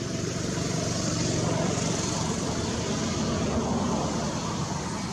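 A passing engine-driven vehicle: a steady low engine hum with rushing noise that grows louder about a second in and eases off near the end.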